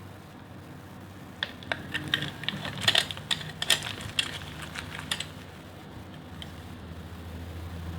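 A blade cutting through a bar of dry soap, giving a quick run of sharp, crisp crunches. They start about a second and a half in and stop about five seconds in, over a faint steady low hum.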